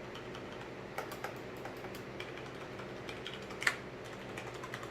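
Keys of a Corsair K70 RGB mechanical keyboard with Cherry MX Brown switches being pressed: an irregular run of key clicks starting about a second in, with one louder clack about three quarters of the way through.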